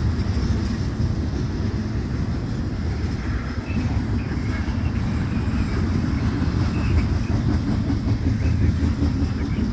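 Double-stack intermodal well cars of a freight train rolling past, steel wheels on rail making a steady low rumble.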